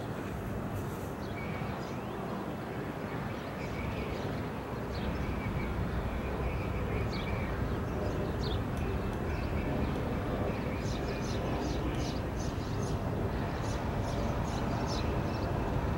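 Freight train's diesel locomotive approaching, a low rumble that grows slowly louder, with short high-pitched ticks in the second half.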